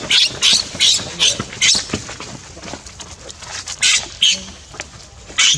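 Baby macaque squealing in distress as its mother grips and handles it: a rapid run of short, shrill squeals, about five in the first two seconds, then two more about four seconds in.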